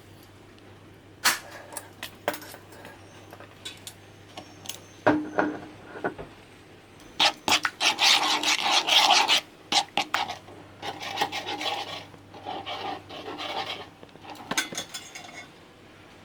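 Handling sounds: scattered clicks and knocks with rubbing and scraping, busiest and loudest from about seven to nine and a half seconds in.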